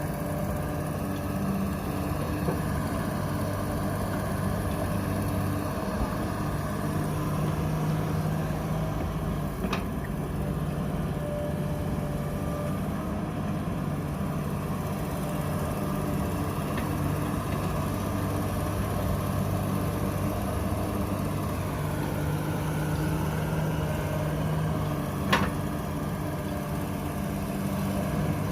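Diesel engine of a Komatsu excavator running steadily, with two short sharp knocks, about ten seconds in and again, louder, near the end.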